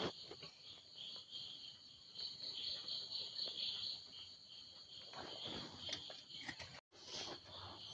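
Faint, steady, high-pitched chirring with a pulsing rhythm, with a few soft clicks and a short rustle about five seconds in.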